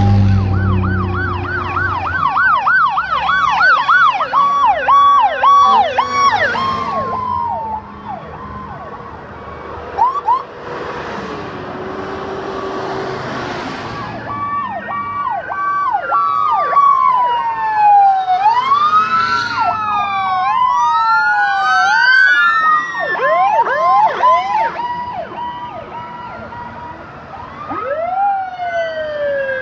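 Sirens of emergency vehicles driving past in procession, several overlapping: a fast yelp in the first several seconds, then slow rising and falling wails in the second half. A fire engine's engine rumbles past at the start.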